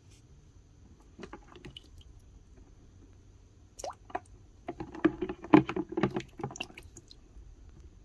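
Handling noise: scattered small clicks and knocks, then a dense run of them about five to seven seconds in.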